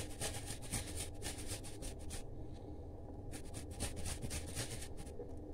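Fresh ginger grated on a metal hand grater: quick, repeated scraping strokes, with a break of about a second a little past the middle.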